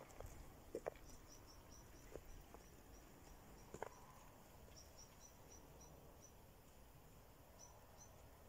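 Faint, high, short chirps repeating in quick runs, with a few soft knocks in the first four seconds.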